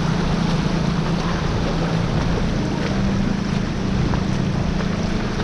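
Floodwater sloshing and splashing around a mountain bike's wheels as it is ridden through a flooded street, over a steady low hum.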